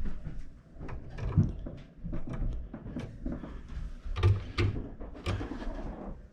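Irregular knocks and clicks from hands handling tools and parts, with a few sharper clicks about four to five seconds in.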